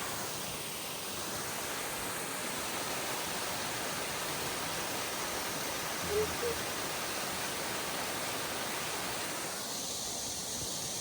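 Waterfall rushing steadily, a dense even roar of falling water. Two short faint blips come about six seconds in.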